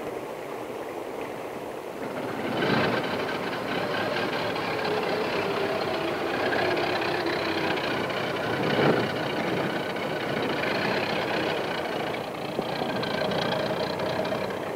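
Model T Ford's four-cylinder engine starting about two and a half seconds in and running, with one sharp bang near the middle, after the car has stalled in a stream. Before the engine starts, only running stream water.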